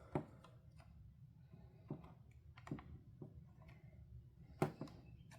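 A handful of separate plastic clicks and taps from a weather radio being handled and its buttons pressed, the loudest a little before the end.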